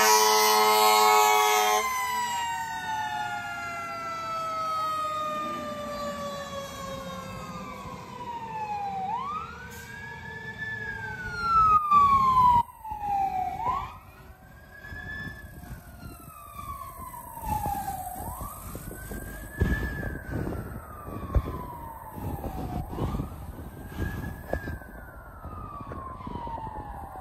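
Fire engine sounding its air horn in a loud blast over the first two seconds while its siren slides down in pitch as it passes. Then another emergency vehicle's siren wails, rising quickly and falling slowly about every four and a half seconds, as more units approach.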